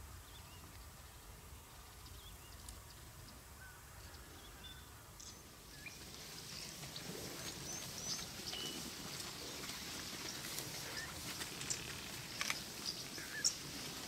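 Bush ambience with scattered short bird chirps over a low background noise. The background grows louder about six seconds in, and a few sharp clicks come near the end.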